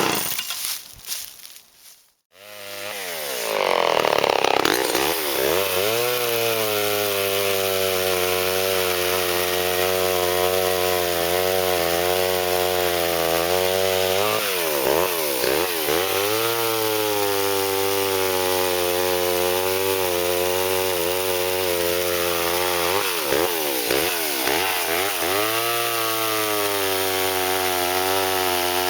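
Vintage Homelite two-stroke chainsaw cutting wood. About two seconds in the sound drops out, then the saw comes back and revs up to high speed, running steadily, its pitch dipping briefly a few times under load.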